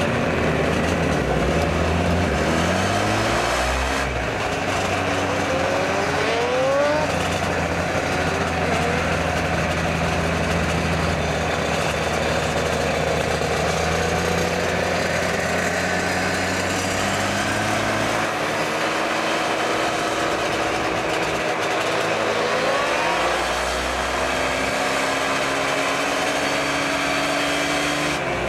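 Air-cooled Yamaha RD two-stroke twin motorcycles riding in a group, heard from on board one of them. The engine note rises in pitch several times as the bikes accelerate up through the gears.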